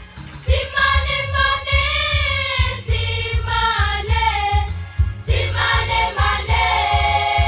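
A school choir singing in unison and parts over a deep pulsing beat. The voices come in about half a second in and break off briefly around five seconds before resuming with a held note.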